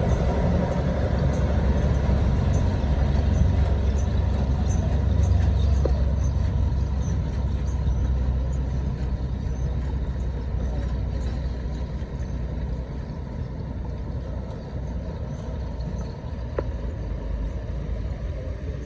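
A Caterpillar wheel loader's diesel engine running, a steady low rumble that slowly fades over the second half.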